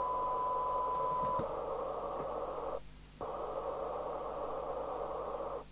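Received audio from a Fidelity CB2000FM CB radio's loudspeaker: a steady 1 kHz test tone over receiver hiss, the tone stopping after about a second and a half and leaving the hiss alone. The hiss cuts off suddenly about halfway through, comes back a moment later and cuts off again near the end, as the squelch closes and reopens while its preset is being set.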